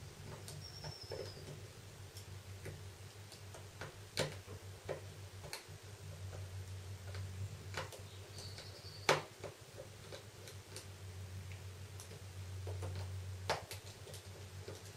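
Small Phillips screwdriver turning out the tiny screws that hold a Samsung Galaxy S1's plastic bezel: light, scattered clicks and ticks of metal on metal, with sharper clicks about four, nine and thirteen seconds in. A brief high squeak twice, over a low steady hum.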